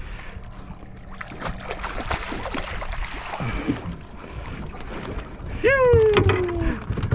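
Water splashing and a run of knocks and rattles as a mackerel is scooped up in a landing net and lifted over the side of a boat. Near the end comes a loud, falling shout of "Yoo!".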